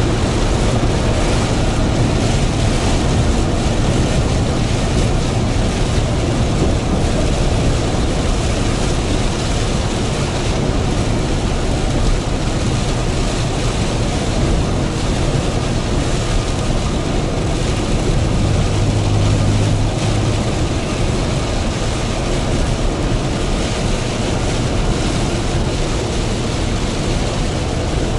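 Hino heavy truck at highway speed in heavy rain, heard from inside the cab: a steady low engine drone under tyre-spray and rain noise. A deeper hum rises briefly about two-thirds of the way through.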